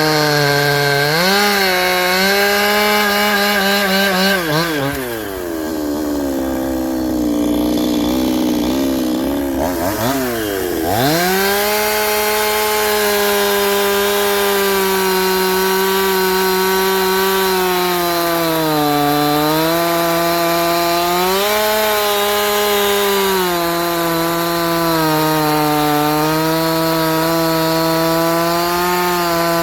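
Chinese-made 'Thunder Down Under' chainsaw on a 7-tooth rim sprocket, cutting through hard ironbark. About five seconds in the engine bogs down under the load, its pitch sinking steeply, then picks back up about eleven seconds in and runs at high revs, with brief dips near the middle and later as the chain bites.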